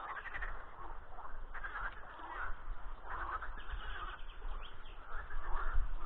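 Chorus of many frogs calling over one another, a spring breeding chorus, with a low rumble underneath.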